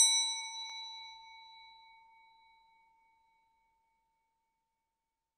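Small bell struck once, ringing with a clear tone that dies away over about two seconds, with a faint second tap under a second in. It is the alert that a countdown timer has run out.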